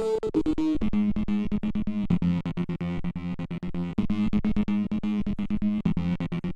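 Funky club dance music: a steady, fast beat over held low notes that change pitch every second or so.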